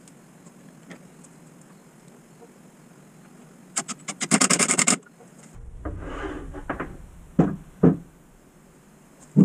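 Cordless impact driver with an extension driving a screw into the pine frame: a loud second of rapid hammering clicks that starts a little under four seconds in. It is followed by the wooden planter frame scuffing on the workbench and two sharp wooden knocks.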